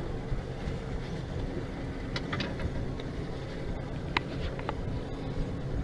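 Boat motor running steadily at idle, a low hum under a few light clicks and knocks from the deck.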